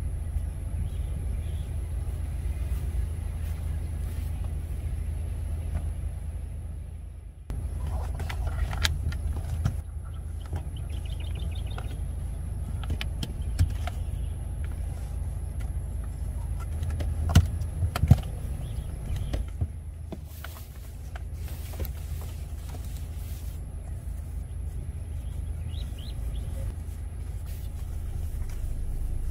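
Interlocking foam puzzle mats and sheets being handled and set down on folded-down car seats, with a few soft knocks and taps, the sharpest pair near the middle. Under them runs a steady low rumble that dips briefly about seven seconds in.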